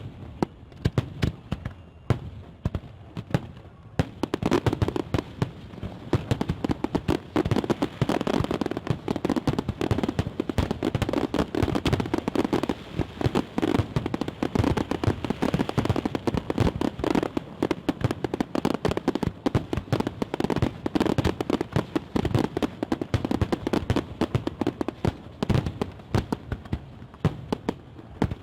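Fireworks salute going off: a few scattered bangs at first, then from about four seconds in many bursts in quick, overlapping succession.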